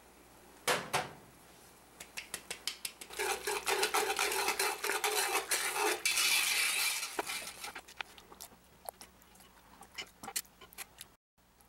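Wire whisk beating flour into simmering broth in a cast iron Dutch oven to thicken gravy, its metal tines clicking rapidly against the pot. A single tap comes first, and the clicking thins to scattered taps in the last few seconds.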